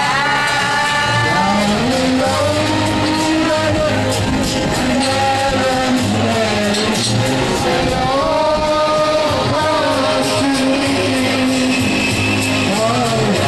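Karaoke: amateur voices singing into microphones over a loud backing track.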